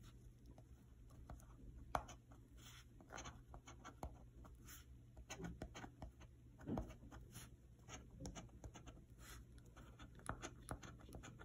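A coin scraping the scratch-off coating off a paper lottery ticket: a run of short, faint scratching strokes.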